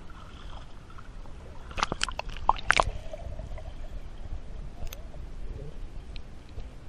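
Pool water sloshing and gurgling around a camera at and just below the surface, with a cluster of sharp splashes about two seconds in, over a low, steady underwater rumble.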